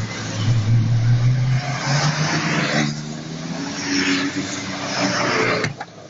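Car engines accelerating past one after another, the engine note rising in pitch about a second in, with tyre hiss from the wet road. The sound drops off abruptly near the end.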